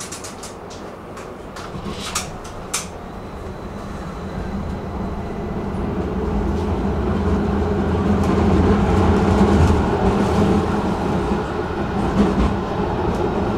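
Tram running on its rails, heard from on board: a few sharp clicks and knocks in the first three seconds, then a steady rumble that grows louder as the tram gathers speed and holds.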